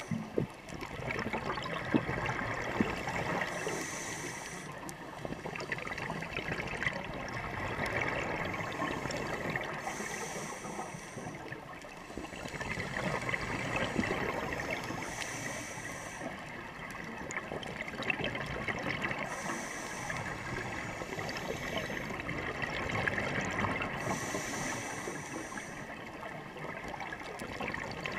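Scuba regulators heard underwater: a steady bubbling and gurgling of exhaled air, with a short higher hiss about every five seconds in time with the breathing.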